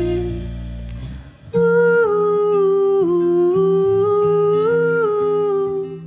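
Live band music: a held chord fades out over the first second, then after a brief gap a slow melody of long, gliding notes, hum-like and without words, comes in over a steady bass note.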